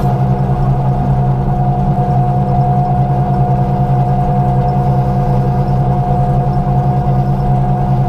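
Sampo 580 combine harvester running steadily while cutting barley: an even engine and machinery drone with a constant whine on top.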